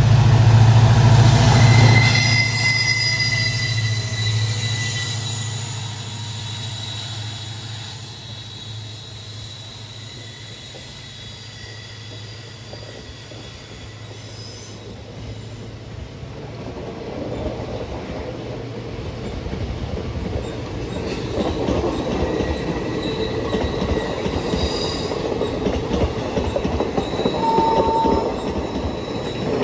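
A passing diesel-hauled passenger train. At first the locomotive's engine hum is loud, then fades over several seconds. After the middle, the coaches' wheels roll past, growing louder, with clattering over the rail joints and thin high wheel squeal.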